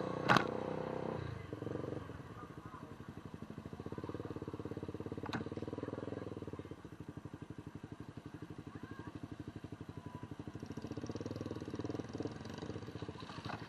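An engine running steadily with a rapid, even pulse, its level swelling and easing. There is a sharp click about a third of a second in and a fainter one about five seconds in.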